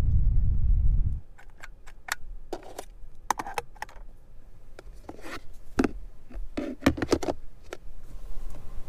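A low rumble that stops about a second in, then a run of sharp plastic clicks and knocks as car centre-console parts are handled by hand: a cap pulled from a 12-volt socket, lids and trim in the cup holder area.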